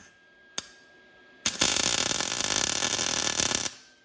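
Lincoln 140 MIG welder running 0.025 wire with 75/25 argon-CO2 gas, laying a tack weld on steel: a couple of short clicks, then the arc crackles steadily for about two seconds and cuts off.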